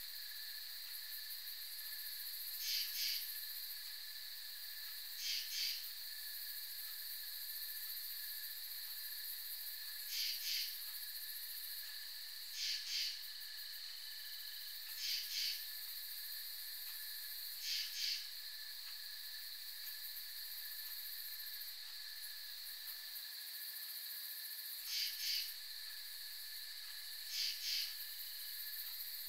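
Night insect chorus: a steady high-pitched drone, with short raspy chirps in pairs repeating every two to three seconds.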